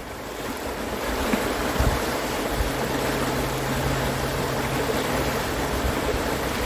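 River rapids rushing steadily, with a low steady hum for a few seconds in the middle.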